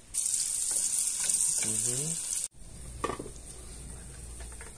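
Garlic cloves, onion and dried red chiles sizzling in hot oil in a frying pan: the start of a sofrito. The loud sizzle drops abruptly about halfway through to a quieter hiss with a low hum and a single knock.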